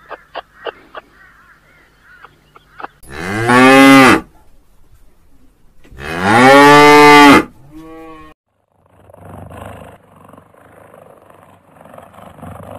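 Holstein dairy cows mooing: two long, loud moos about three seconds apart, each rising and then falling in pitch, followed by a shorter call. Faint ticking comes before them and a rough, noisy sound follows.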